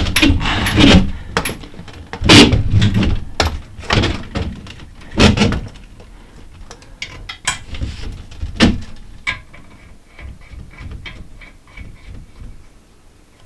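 Plastic toilet cistern fittings being handled and seated in the tank. There is a run of irregular knocks and clicks, heavier and denser in the first half and turning to lighter, scattered clicks later.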